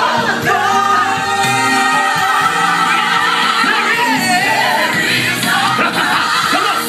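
Live gospel music: voices singing over band accompaniment.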